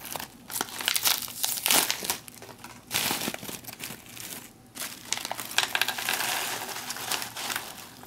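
A foil-laminate MRE snack pouch crinkling loudly as it is torn open at the notch and handled. It crackles in repeated bursts, then dry roasted chickpeas rattle out of it into a plastic tray near the end.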